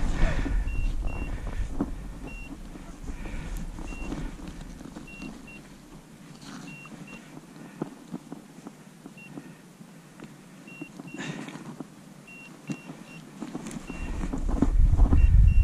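Handling of a landing net and a freshly landed zander: scattered small knocks, clicks and rustles, one stronger knock about eleven seconds in. A low rumble of wind on the microphone is loud at the start, dies away, and returns near the end. Faint short high beeps recur throughout.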